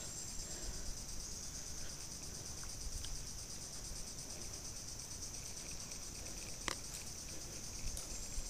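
Steady, high-pitched drone of insects, with one sharp click about two-thirds of the way in.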